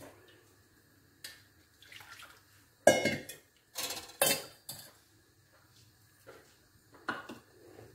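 A few separate clinks and knocks of kitchenware against a steel mixing bowl, the sharpest about three and four seconds in, as the flour mix is handled and jaggery syrup is poured in from a ceramic bowl.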